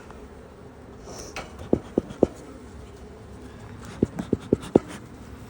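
Honeybees buzzing steadily around an open hive, with two runs of short, dull knocks: three about a second and a half in, then four more near the end.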